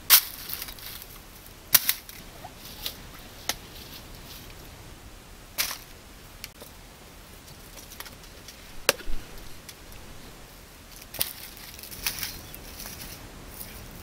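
Scattered sharp snaps and crackles, about half a dozen spread over several seconds, the loudest just at the start and another about two seconds in. They are the handling noise of a wicker basket on dry ground and of green papayas being handled and pulled at on the tree.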